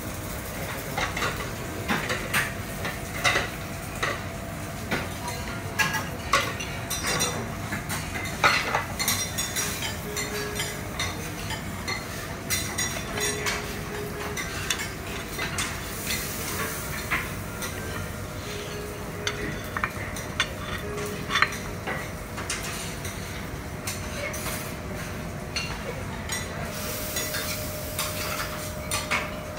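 Metal spatulas clinking and scraping on a teppanyaki iron griddle in irregular strokes, over a steady sizzle of food frying on the hot plate.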